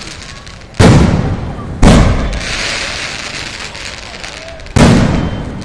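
Fireworks exploding: three loud bangs, the first two about a second apart and the third about three seconds later, each followed by a long fading rumble.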